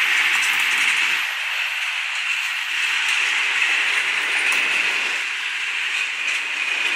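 Passenger train receding along the track: the low rumble of the last carriage's wheels fades about a second in, leaving a steady hiss of wheels on rail with a few faint clicks.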